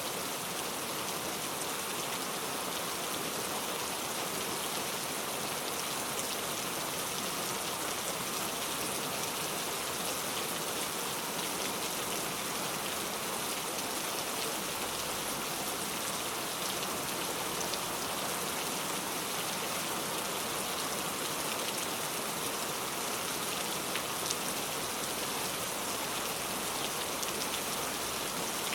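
Heavy rain falling steadily, a dense even hiss with many fine drop ticks and no lull.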